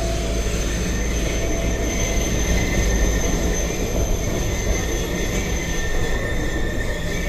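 Running noise of a moving tram heard from inside the car: a steady low rumble with two thin, steady high tones over it.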